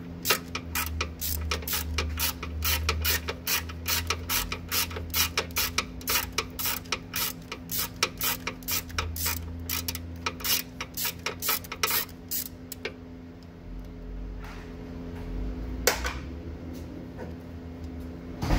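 Ratchet wrench on a socket extension clicking at a steady pace, about three to four clicks a second, as it unscrews a bolt. The clicking stops about twelve seconds in, and a few single clicks follow.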